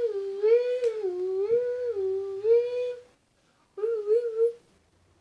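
A person imitating a police siren with their voice: a hummed wail that rises and falls about twice a second. It stops about three seconds in, then comes back shorter and quicker about a second later.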